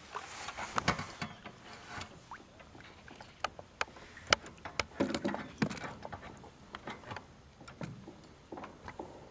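Irregular clicks, taps and knocks of handling in a small boat, with a denser cluster of louder knocks about five seconds in.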